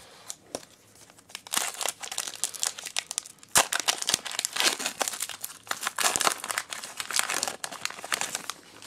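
Foil wrapper of a Pokémon card booster pack crinkling and tearing as it is ripped open by hand, starting about a second and a half in.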